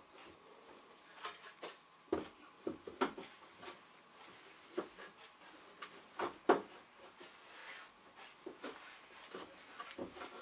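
Irregular knocks and clicks of flat-pack games-table panels being handled and fitted together by hand, the sharpest knock about six and a half seconds in.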